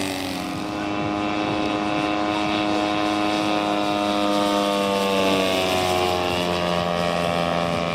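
Engine and propeller of a large-scale RC model aeroplane running steadily in flight, its pitch slowly falling.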